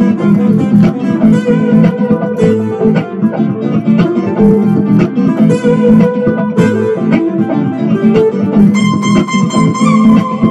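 Guitar-led music with a steady rhythm; about nine seconds in, sustained high notes come in and hold.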